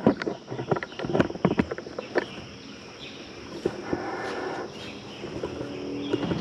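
Sharp plastic-and-metal clicks and knocks of a camera being worked onto a tripod mount, bunched in the first two seconds. Later come a couple of short, faint pitched sounds.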